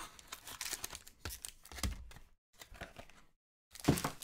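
Foil trading-card pack being handled and opened: crinkling and tearing of the wrapper in short crackly bursts, the loudest about four seconds in.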